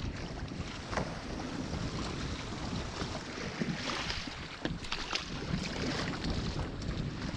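Steady wind rumble on the microphone, with a few light knocks.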